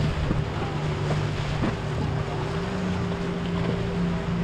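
Motorboat engine running with a steady low drone, its pitch stepping up slightly a little over halfway through.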